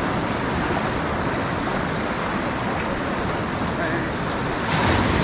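Shallow sea surf washing in a steady hiss, swelling louder near the end as a wave rolls in.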